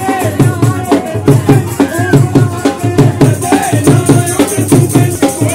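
Live Punjabi folk music for Malwai giddha: a dhol beaten in a steady, quick rhythm with boliyan sung over it in a gliding melody.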